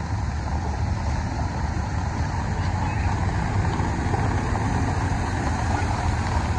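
Steady rain and road noise on a flooded street, with a low rumble. A motor vehicle's engine grows slowly louder as an auto-rickshaw drives up through the floodwater near the end.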